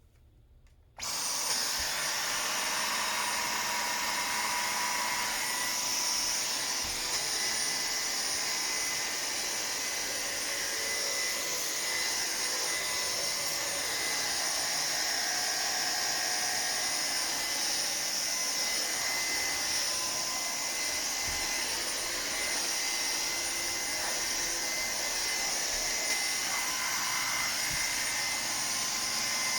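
Dyson Micro 1.5kg cordless stick vacuum switched on about a second in, then running steadily with a high-pitched motor whine and airflow hiss.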